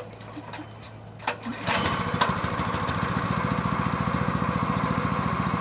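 212cc Honda-clone single-cylinder engine on a gas pressure washer starting after a few clicks and a brief clatter, catching about a second and a half in and running steadily. It now starts because the low-oil sensor wire is unplugged, bypassing a stuck float that had been cutting the ignition.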